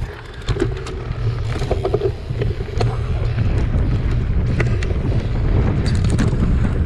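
Mountain bike coasting down a loose gravel trail: steady wind buffeting on the camera microphone and tyres rolling over stones, with scattered rattles and clicks from the bike.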